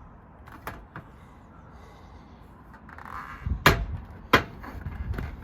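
Gazebo roof panel knocking against the frame as it is fitted: a couple of light clicks, a brief scrape a little past the middle, then two sharp clacks about 0.7 s apart, the loudest sounds.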